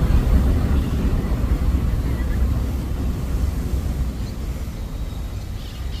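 Wind buffeting the phone's microphone: an uneven low rumble that eases a little toward the end.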